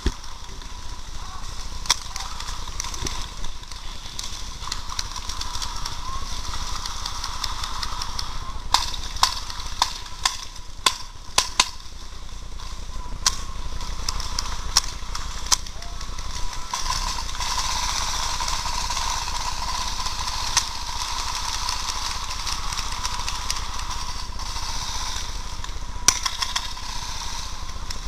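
Paintball markers firing: scattered sharp pops, with a quick run of about half a dozen shots around ten seconds in, over a steady hiss.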